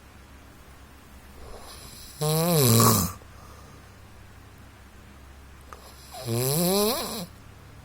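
A man snoring in his sleep: two loud snores about four seconds apart, each lasting about a second, the first falling in pitch and the second rising.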